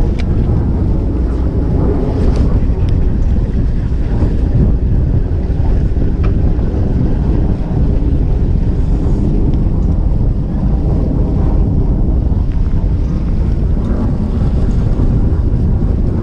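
Strong sea wind buffeting the microphone in a steady low rumble, with choppy sea washing against the boat's hull.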